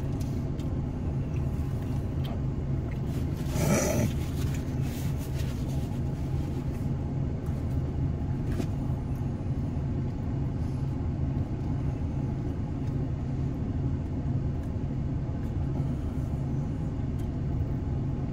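Steady low rumble of an idling car engine, with one brief short noise about four seconds in.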